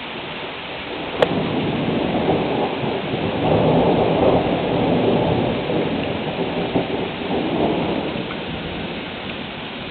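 Steady rain falling, with a long low rumble of thunder that builds from about a second in, is loudest around the middle, and dies away near the end.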